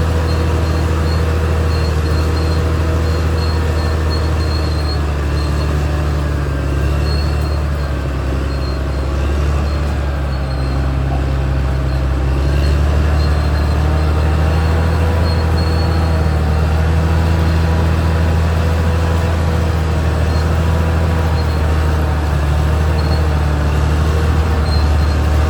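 Caterpillar D6R XL bulldozer's diesel engine running steadily with a low drone, easing off slightly about eight seconds in and picking up again a few seconds later.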